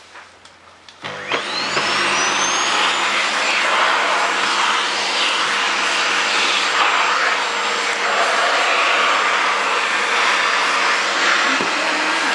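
Vacuum cleaner switched on about a second in, its motor whine rising quickly as it spins up, then running steadily.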